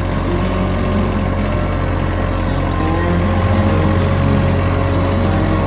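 RK25 compact tractor's diesel engine running steadily as the tractor drives slowly along a gravel lane.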